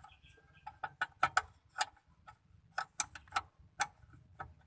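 Sharp metallic clicks and taps at uneven intervals, some in quick pairs, from a hand wrench working a bolt on a disc brake assembly.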